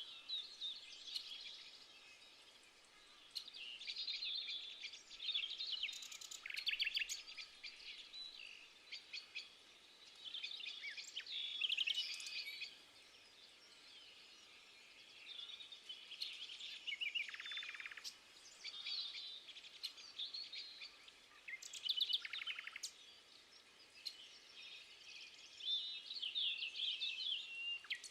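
Songbirds singing in warbling phrases of one to three seconds with short pauses between, some phrases running into fast trills, over a faint steady hiss.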